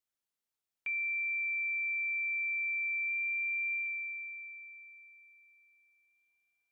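A steady, high-pitched pure electronic tone starts abruptly about a second in, holds level for about three seconds, then fades out evenly, with a faint click near the middle.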